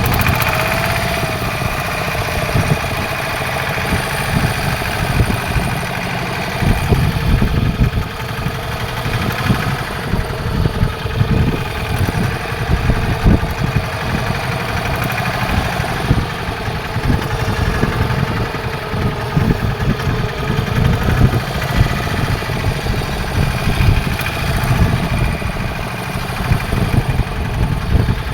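Fishing boat's engine running steadily at sea, a constant drone over an uneven low rumble.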